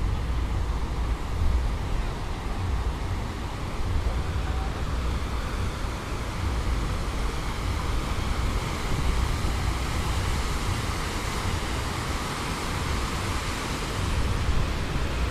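Steady city street noise of passing traffic, with a low, gusting rumble of wind on the microphone.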